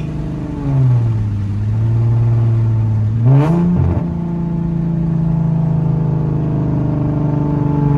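Straight-piped V6 of a 2011 Infiniti M37x (catless downpipes, muffler and resonator deleted), heard from inside the cabin while driving. The engine note steps down in pitch about a second in. A quick rising rev with a short rasp comes about three and a half seconds in, and the engine then runs steadily at a slightly higher pitch.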